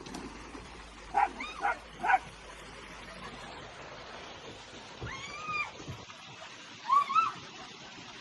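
A pet animal's cries: three short calls about a second in, a longer call that rises and falls about five seconds in, and a shorter one about seven seconds in.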